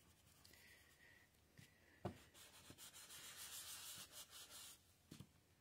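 Faint rubbing of a hand over the back of cardstock pressed onto an inked stamp, to transfer the image. A soft tap about two seconds in, then a couple of seconds of light rubbing strokes.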